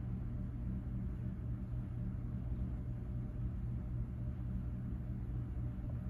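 Leslie Locke 'Play It Again Sam' ceiling fan running steadily: a low, even motor hum under a soft hiss.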